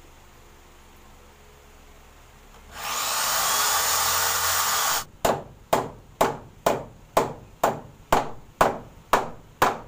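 A loud hiss of compressed air lasting about two seconds, then sharp strikes on wooden shelving, evenly repeated about twice a second.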